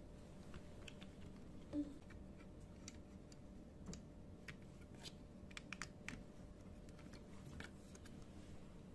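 Light scattered clicks and taps of plastic and metal keyboard parts being handled and fitted together, with one louder knock about two seconds in and a quick run of clicks around six seconds in.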